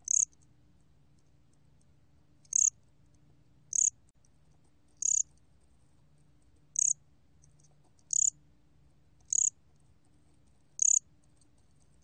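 곰귀뚜라미 cricket calling, recorded at 23 °C: eight short, high chirps spaced a second or two apart, over a faint low hum.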